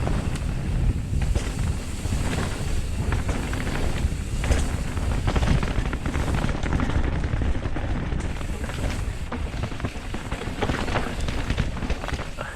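Wind buffeting a camera microphone during a fast mountain-bike ride, with a dense low rumble and many short knocks and rattles from the bike and tyres over rough ground.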